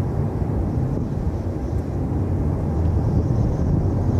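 Boeing 777-200ER twin jet engines at takeoff thrust during the takeoff roll, heard from afar as a steady low roar.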